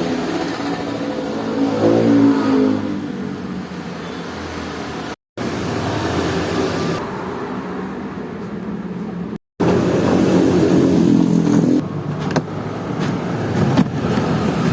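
Washing machine running after its loose motor cable was reconnected, its motor pitch rising and falling twice as it works. Broken by two brief moments of dead silence.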